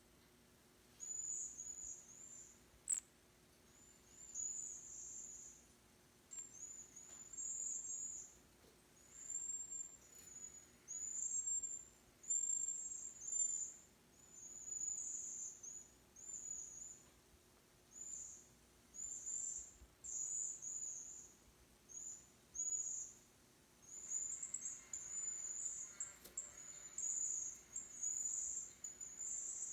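Cedar waxwing giving thin, very high-pitched calls over and over in short runs of about a second with brief gaps, coming almost without pause near the end. A sharp click about three seconds in.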